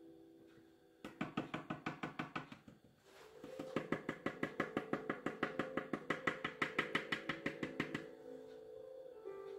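Background music: a quick, even pulse of plucked or tapped notes, about six a second, over sustained tones. It stops briefly about three seconds in, then returns and fades near the end.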